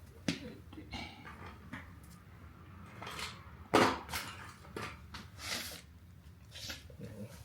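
Hands working on ventilation fan motor parts: scattered clicks, light metal knocks and scrapes, with one sharper knock about four seconds in.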